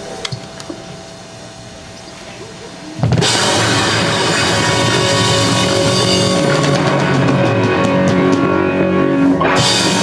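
Live rock band ending a song: a quieter held note, then about three seconds in the full band crashes in with drums, cymbals, bass and electric guitars on a big sustained final chord, which cuts off suddenly near the end.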